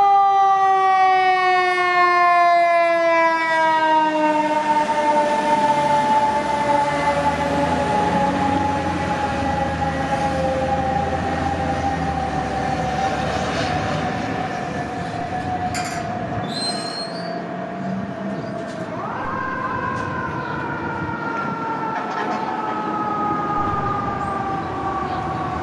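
Fire truck's Federal Q2B mechanical siren winding down. Its whine falls slowly in pitch after being spun up, then is spun up again about two thirds of the way through and falls once more.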